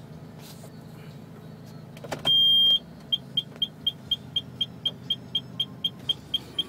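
A car's electronic warning buzzer: after a couple of clicks, one long high beep sounds about two seconds in, followed by rapid, even beeping about four times a second, over a low steady hum.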